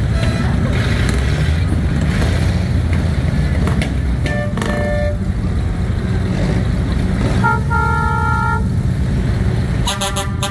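Vehicle engines running steadily while horns sound. There are short toots about halfway through, one longer two-note horn blast of about a second a little later, and a quick series of rapid honks near the end.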